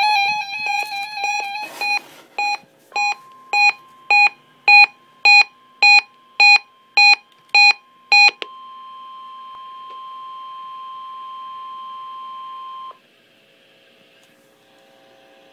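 Electronic alarm beeping, a fast run at first and then a single beep about every half second until about eight seconds in. Under the beeps, from about three seconds in, the National Weather Service weather radio warning alarm tone sounds steadily for about ten seconds, here sent as a test of the public warning system, and cuts off sharply. A faint hum remains.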